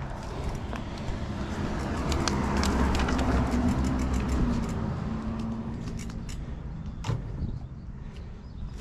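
A vehicle going past, growing louder to a peak a few seconds in and then fading away, with a sharp click about seven seconds in.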